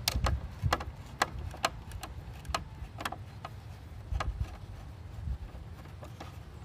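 Irregular small clicks and taps of hard plastic parts and wiring being handled inside a truck tow mirror's housing, closer together in the first second, over a low rumble.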